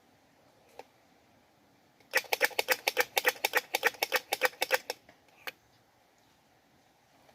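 A squirrel giving a rapid chattering call: a run of about twenty sharp, clicky notes at about seven a second, lasting some three seconds, with a single click before and after. It is the call the uploader presents as a squirrel calling for a mate.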